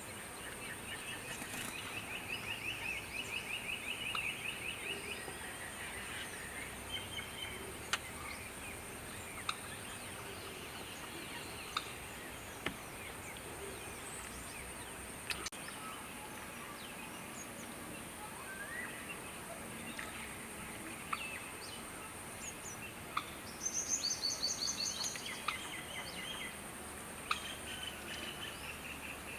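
Birds calling in fast series of repeated notes: a long run in the first few seconds, and several shorter runs near the end, one of them higher-pitched, over a steady high hiss and scattered short ticks.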